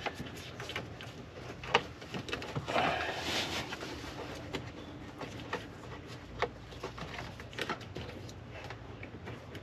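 Wires and a plastic dash panel being handled by hand: scattered light clicks and taps, with a short rustle about three seconds in.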